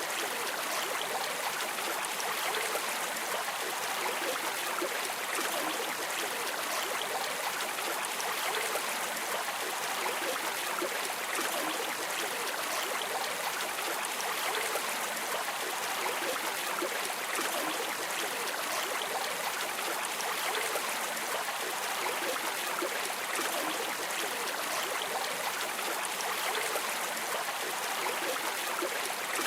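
River water streaming and trickling steadily, an even rushing with small splashes.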